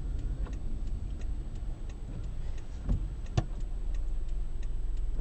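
Road and engine rumble inside a moving car's cabin, with a light, regular ticking about three times a second and two sharper knocks near the middle.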